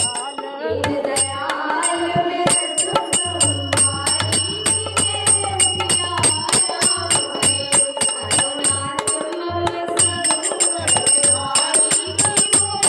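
Indian devotional jagran music with a fast, steady beat of metallic bell-like percussion strikes ringing over a melody and a low drum beat.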